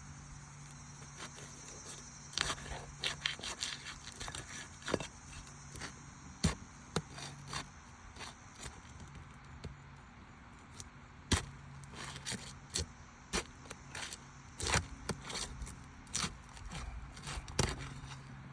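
Irregular sharp clicks, taps and scrapes of a roofing pry bar working under asphalt shingles, lifting tabs, breaking the seal strips and pulling nails.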